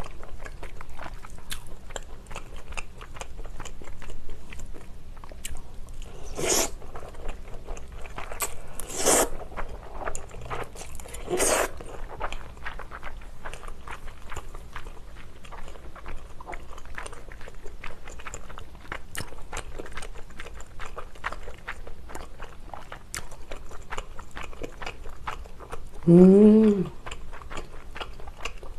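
A person chewing a mouthful of basil pesto pasta with shrimp close to the microphone: a steady run of small mouth clicks. There are three louder short sounds several seconds apart in the first half, and a brief hummed 'mm' that rises and falls near the end.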